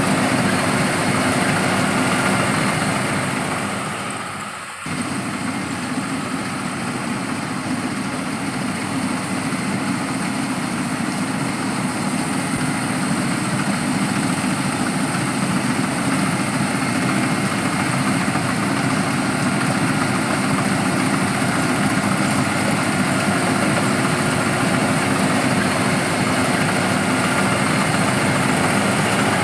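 Rice-harvesting machine's engine running steadily. The sound fades briefly about four to five seconds in, then picks up again abruptly.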